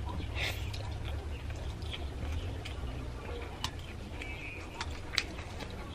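Noodles slurped and chewed, with chopsticks clicking now and then against a stainless steel plate, over a low steady hum.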